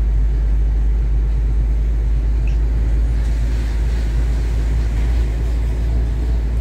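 FAW JH6 tractor-trailer under way: its diesel engine and tyres make a steady, even low rumble.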